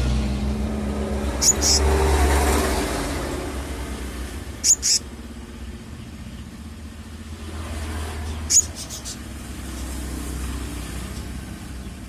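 A bird gives short, high chirps in quick pairs, three times. Under them runs the low rumble of a passing motor vehicle, loudest at first and then fading.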